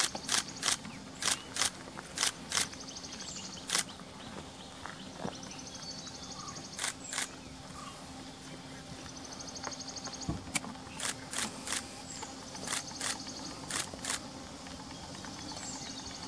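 Camera shutter firing in rapid bursts: runs of sharp clicks, about three a second, several times over. A high pulsing insect trill comes and goes in the background.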